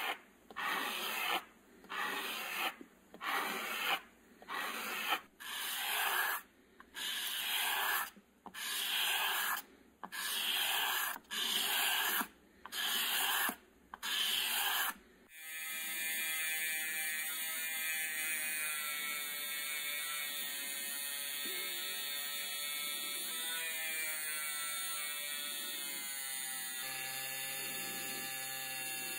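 A small metal ratchet-wrench part rubbed back and forth by hand on abrasive paper, about one stroke a second for some fifteen seconds. Then a rotary tool runs steadily with a cone-shaped polishing bit against the part, its pitch shifting slightly now and then.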